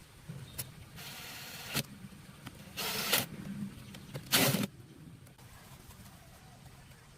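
A small motor run in three short bursts: the first lasts under a second, and the next two are shorter, with the last the loudest. A single click comes just before them.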